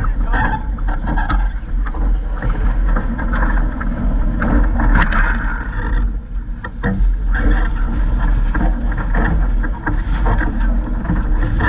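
Wind buffeting a GoPro microphone over water rushing and splashing along the hull of a Vaucluse Junior sailing dinghy running under spinnaker. Irregular slaps of chop against the hull come through, the sharpest about five seconds in.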